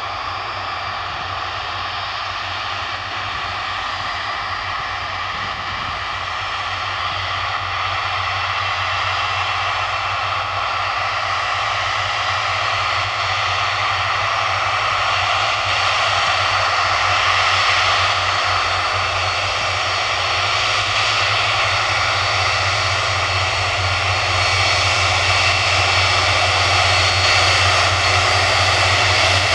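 Boeing 747-400's four jet engines running at low taxi power: a steady whine with several high tones over a low hum, growing gradually louder.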